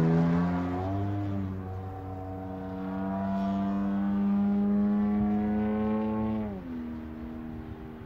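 A Desert Aircraft DA-120 twin-cylinder two-stroke gas engine with a canister exhaust and a Falcon propeller drives an RC aerobatic plane in flight, droning steadily. Its pitch dips and recovers early on, holds level, then drops sharply about six and a half seconds in, and the sound fades as the plane moves off.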